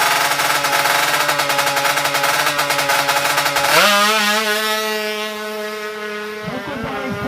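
Tuned two-stroke Kawasaki Ninja 150 drag-bike engine running at high revs, held steady, with an abrupt jump to a different pitch a bit past halfway.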